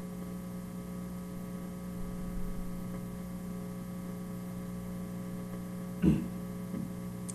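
Steady electrical mains hum: a low buzz made of several steady tones. About six seconds in comes one brief vocal sound from the man.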